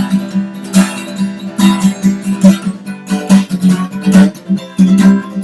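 Acoustic guitar strummed in a steady driving gallop rhythm, with a repeating low bass note under the strokes.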